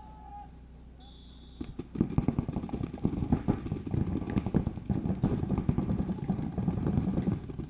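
A short high beep, then paintball markers firing in rapid, overlapping strings of shots from about two seconds in, a dense crackle that keeps going.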